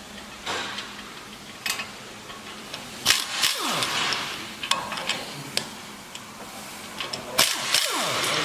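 An impact wrench runs in two short bursts while the tie rod end comes off a Honda Ridgeline's front steering knuckle, its motor spinning down with a falling whine after each burst. Metal tools clink in between.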